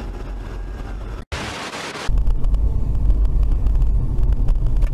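Car driving, heard from a dashcam inside it: a loud, steady low rumble of road and engine noise that starts abruptly about two seconds in. Before it comes quieter traffic noise, cut off by a brief drop and a short burst of hiss.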